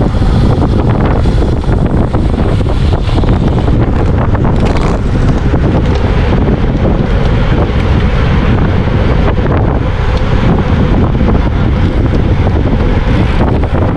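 Heavy wind buffeting on the microphone of a bike-mounted camera riding at race speed: a loud, steady rush strongest in the low end, with constant small gusts.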